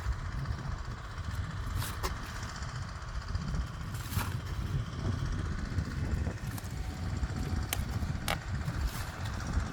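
Mini excavator's engine running steadily, with a few short, sharp clinks or knocks.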